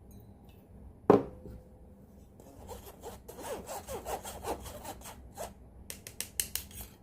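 A spoon scraping and scooping as cocoa powder is added to the cake mix. There is a single sharp knock about a second in, a run of quick scraping strokes, and a few sharp taps near the end.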